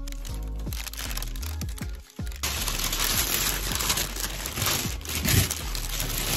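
Plastic and paper shopping bags crinkling and rustling as they are handled, loud and continuous from about two and a half seconds in, over background music.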